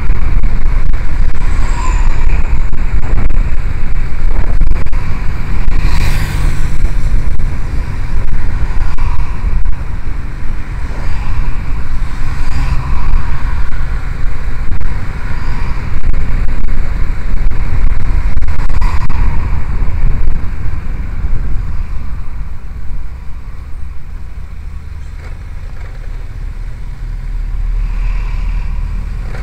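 Heavy wind buffeting on the microphone and road noise from riding along a road, with cars passing close by. It quietens for a few seconds near the end, then rises again.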